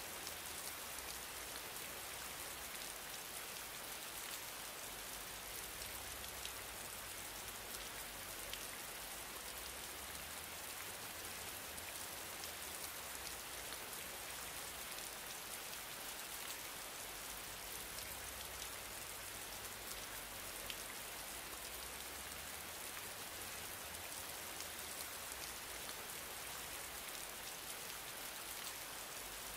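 Steady, even hiss with a faint low hum underneath and a few tiny scattered ticks; no speech.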